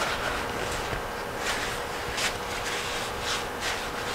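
Cloth shop towel wiping down a steel crankshaft: a run of short, irregular rubbing strokes, with a faint steady hum underneath.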